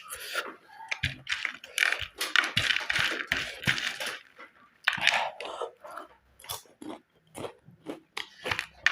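Close-miked chewing of crunchy packaged chips: dense, irregular crisp crunches, with short lulls about halfway through and towards the end.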